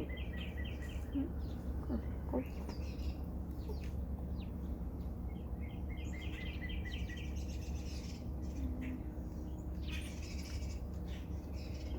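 A bird chirping in two quick trills of rapidly repeated notes, one at the start and one about six seconds in, with a few scattered chirps. A steady low hum runs underneath.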